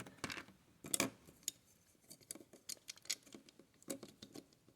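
Faint, scattered clicks and clacks of plastic Lego pieces as the Lego gun is handled and its rubber-band mechanism pulled back for loading, with a couple of sharper clicks about a second in.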